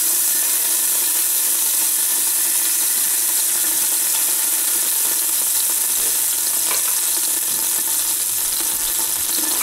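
Olive oil and anchovy oil sizzling steadily in the bottom of a hot stainless steel stockpot.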